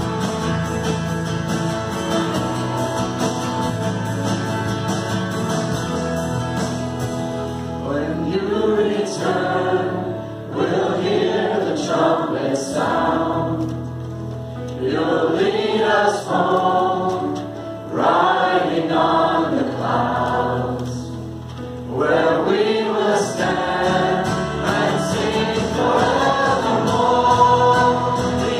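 Live worship band playing a song on guitars and bass, with singing coming in about eight seconds in and going on in phrases with short breaks between them.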